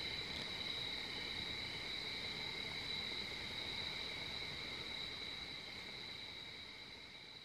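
Night chorus of crickets: a steady, unbroken trill at two high pitches, fading out near the end.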